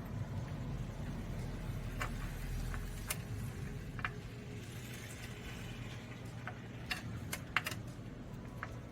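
A few scattered light clicks and taps of metal parts and tools being handled during transmission refitting, over a steady low hum.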